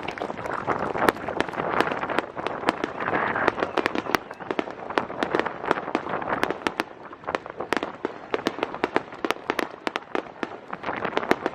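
Aerial fireworks going off in quick succession: many sharp bangs and crackles, several a second, over a steady background wash.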